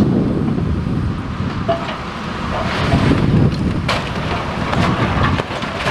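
Long-reach demolition excavator working on a brick building, its diesel engine running under heavy wind buffeting on the microphone, with a sharp knock about four seconds in.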